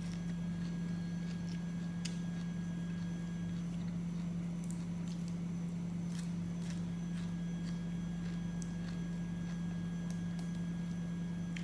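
Close-up eating sounds: scattered wet clicks and smacks of chewing and finger-sucking while eating with the hands. Under them runs a steady low hum, which is the loudest sound throughout.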